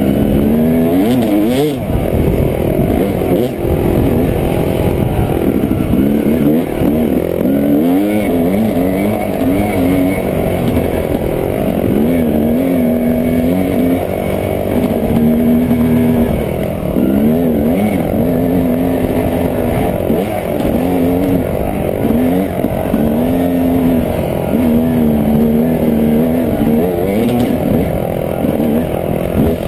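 Dirt bike engine being ridden on a trail, the revs rising and falling over and over as the rider works the throttle.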